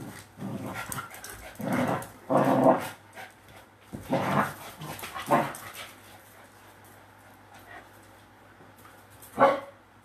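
Small dogs play-fighting, with a run of short barks over the first five seconds or so, then a lull, and one more sharp bark near the end.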